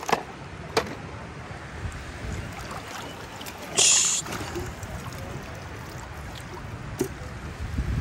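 Steady low rumble of wind and shallow sea water washing over sand. About four seconds in, a short hissing splash of water poured from a small plastic toy watering can, with a few sharp clicks of plastic toys being set down around it.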